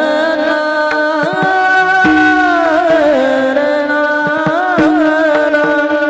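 A male kirtan singer sings a long, ornamented melodic line in the Varkari kirtan style, holding notes and bending them. A few drum strokes fall underneath, about a second in and again around four and a half seconds.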